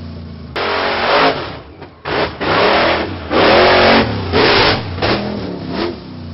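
Monster truck engine sound effect, revved in a string of short bursts, each rising and falling in pitch.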